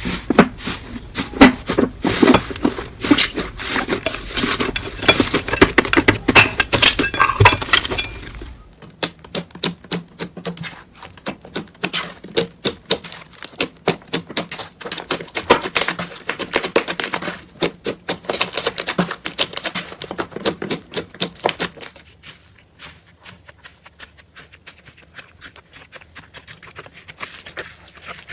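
Slime being worked, giving rapid sticky clicks, pops and crackles. The sound changes abruptly about 9 and 22 seconds in, and is quieter in the last part.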